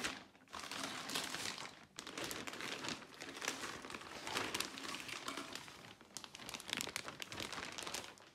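Plastic wrap crinkling and rustling as it is pulled off an intake manifold by hand, in busy bursts with a couple of brief pauses.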